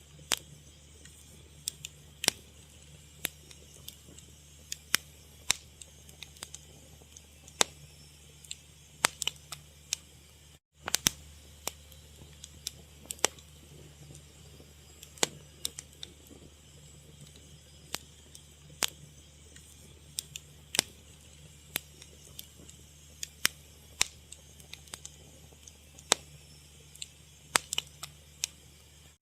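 Wood fire crackling: sharp, irregular pops and snaps over a low steady rumble, with a momentary break about ten seconds in.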